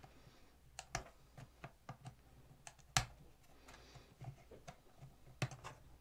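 Faint, irregular small clicks and taps of plastic as a fingernail pries at the snap-on cover plate of the CamDuck 007 smoke-detector camera housing, the sharpest click about three seconds in.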